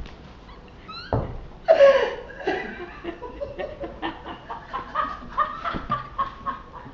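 Girls' stifled giggling and snickering: a run of short, quick bursts of laughter after a brief rising squeak about a second in.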